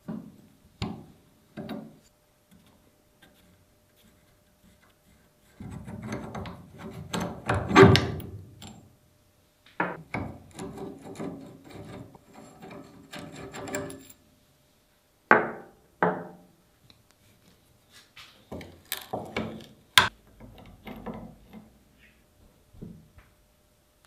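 Old lever metal shear being taken apart by hand: a 17 mm combination wrench working its rusted nuts and bolts, with gritty rubbing and scraping and loose steel parts clinking. A few light clicks at first, a longer grinding, rubbing stretch midway, and sharp metal clinks near the end.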